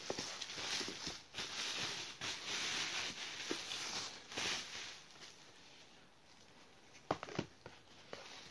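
Plastic bubble wrap rustling and crinkling in uneven bursts as it is pulled off and handled for about five seconds. It then goes quieter, with a few sharp clicks about seven seconds in and one more near the end.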